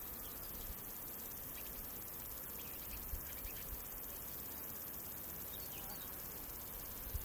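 Outdoor nature ambience: a steady hiss with a high insect drone and faint scattered chirps, broken by a few soft low thumps.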